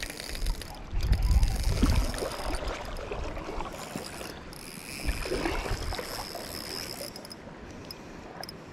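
Rushing river water with wind buffeting the microphone, giving a heavy low rumble about a second in and a weaker one around five seconds in.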